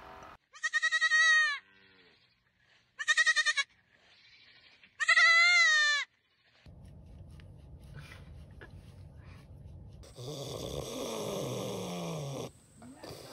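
Young goat bleating three times, each a loud, wavering call, the last the longest.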